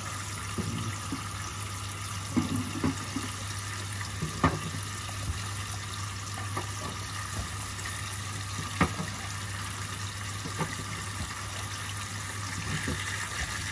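Kitchen tap water running steadily into a stainless steel sink onto a pile of eggs. A handful of sharp clicks and knocks come as the eggs are rinsed and set down against one another and the steel.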